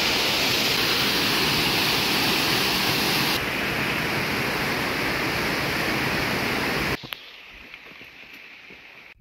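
Steady rush of fast-flowing creek water. Its tone dulls slightly a little past three seconds, and it cuts off suddenly about seven seconds in, leaving a much quieter background with a few faint ticks.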